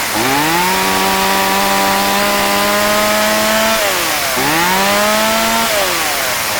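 Stihl 018C chainsaw's two-stroke engine revved hard twice: held at full speed for about three seconds, dropped briefly, revved again for about a second, then let fall back toward idle near the end.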